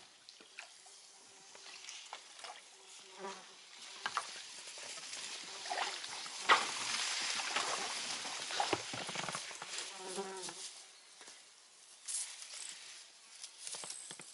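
Rustling and scraping of branches, leaves and reeds against an inflatable boat as it is pushed past a fallen tree in the water, with many small clicks and cracks; loudest about six to nine seconds in.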